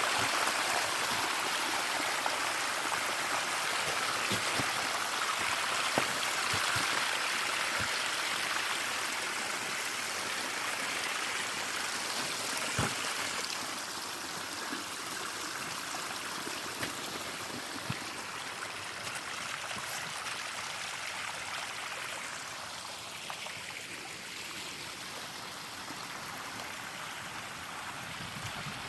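Water flowing steadily in a stream, a smooth rushing with no breaks, growing gradually fainter. A couple of brief sharp clicks stand out over it.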